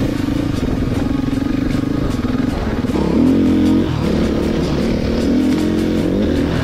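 Dirt bike engine running under way, its pitch rising and falling again and again as the throttle opens and closes.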